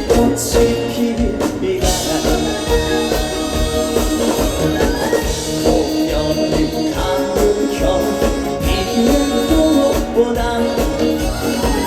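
A trot song performed live through a stage sound system: band backing with a steady beat and a sung melody.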